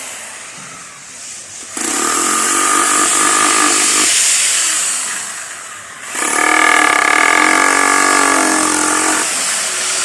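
A motor running in two bursts, the first about two seconds long and the second about three, each a steady whine over a hiss that switches on and off abruptly.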